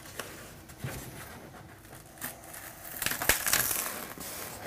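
Foam board rustling and creaking as it is handled. Then, over the last second and a half, louder crackling and tearing as the glued foam-board wing is pulled up out of the wooden jig: its paper facing is tearing where glue has stuck it to the jig.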